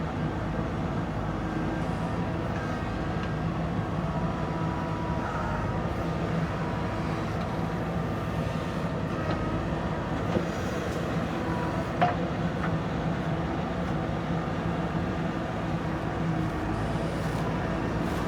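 JCB backhoe loader's diesel engine running steadily as it works, with faint thin whines above the drone and a single sharp knock about twelve seconds in.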